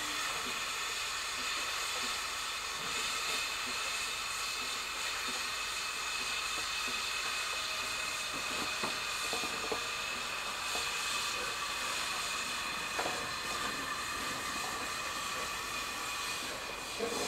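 LNER A3 Pacific steam locomotive 60103 Flying Scotsman hissing steadily as steam blows off, with a few faint whistling tones in the hiss. The hiss starts abruptly, and a few short knocks come through it.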